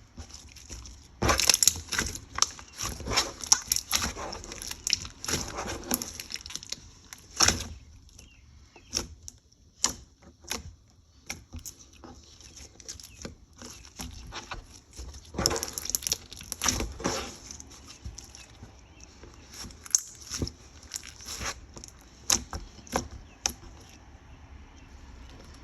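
Ice slime being squeezed and poked by hand, its hardened crust crackling and crunching in dense runs of sharp clicks. The heaviest runs come in the first few seconds, again in the middle, and a little after.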